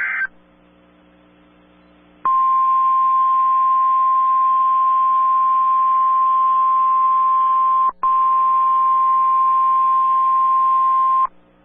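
NOAA Weather Radio warning alarm tone: a single steady 1050 Hz tone, about nine seconds long with a split-second dropout near the end, announcing a tornado warning. It follows the tail of a brief SAME digital data burst and about two seconds of faint hiss.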